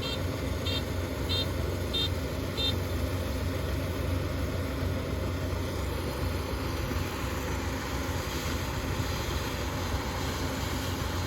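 Kubota ER470 rice combine harvester's diesel engine running steadily. Its high-pitched warning beeper sounds about one and a half times a second, then stops about three seconds in.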